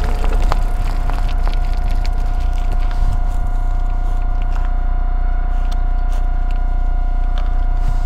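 Pedelec ridden along a rough footpath: a steady motor whine over a low rumble of wind on the microphone, with scattered rattling clicks in the first few seconds.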